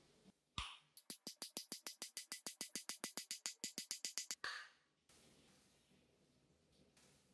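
A single knock, then rapid, evenly spaced knocks, about nine a second for some three seconds: a sledgehammer's steel head being knocked against the wooden workbench to seat it on its new wooden handle.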